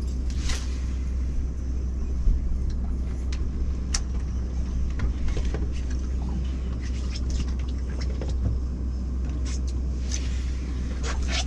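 Steady low rumble of the fishing boat's engine running, with scattered light clicks and taps over it.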